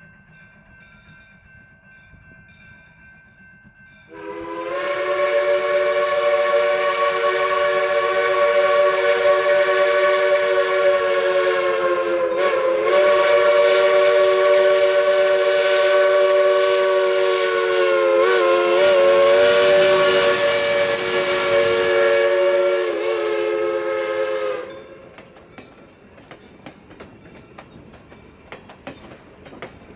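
Steam locomotive whistle blowing one long blast of about twenty seconds, several steady tones together, wavering briefly a few times before it cuts off. Then the passenger cars roll past with their wheels clicking over the rails.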